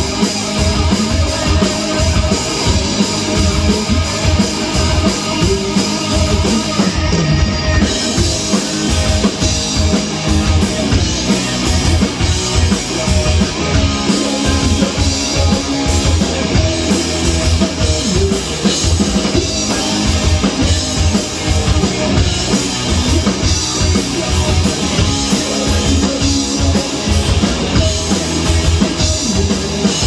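A rock band playing live and loud: electric guitar over a drum kit, with steady drum and cymbal hits.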